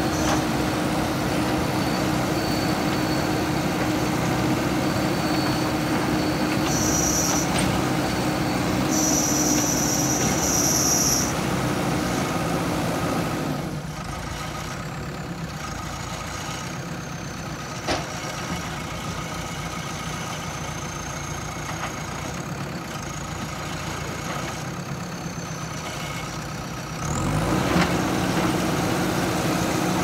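JCB 3DX backhoe loader's diesel engine running as the backhoe arm digs, with a couple of short high whines about a third of the way in. The engine note drops for about thirteen seconds midway, then rises again near the end.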